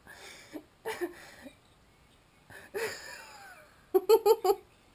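A woman laughing: several breathy, airy laughs, then a quick run of four 'ha's about four seconds in.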